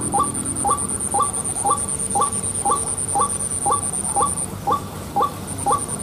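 White-breasted waterhen (ruak-ruak) call repeated steadily, about two short hooked notes a second. Behind it a high, fast insect trill runs on and drops out for about a second some four and a half seconds in.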